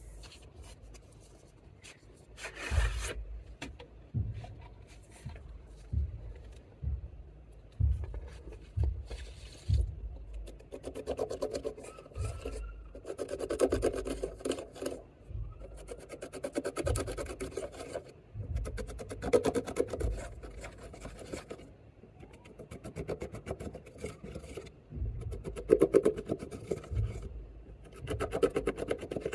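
Pressed glitter eyeshadow in a palette being crushed and scraped with the end of a lipstick tube: repeated scratchy rasping strokes, each with a dull knock, thickest over the second half.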